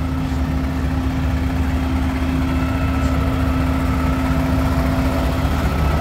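Diesel engines of a line of concrete mixer trucks idling, a steady low hum that holds evenly throughout.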